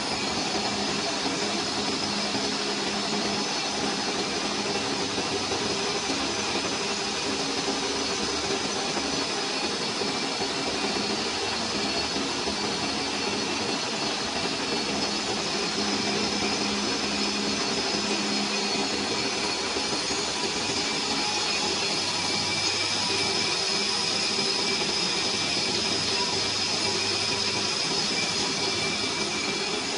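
Large metal lathe turning a 1.4301 (304) stainless steel shaft, the carbide tool taking a cut along it: a steady mechanical whir and hiss with a faint high whine, unchanging throughout.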